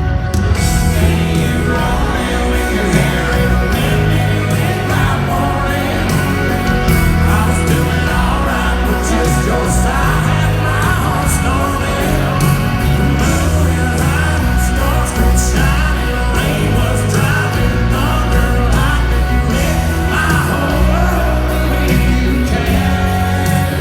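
Live country band performance with a male lead singer over loud bass and drums.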